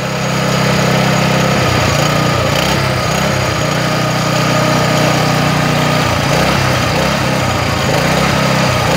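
Grouting pump running under test with a steady low machine drone; about one and a half seconds in the drone starts to waver, holds steady again for a few seconds, then wavers once more near the end.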